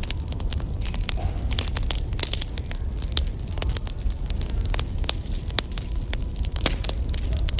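Wood fire crackling: irregular sharp pops and snaps of burning firewood over a steady low rumble.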